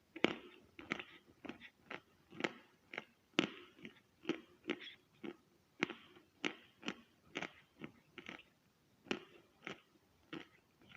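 A person biting and chewing chalk: a steady run of crisp, dry crunches, a little under two a second.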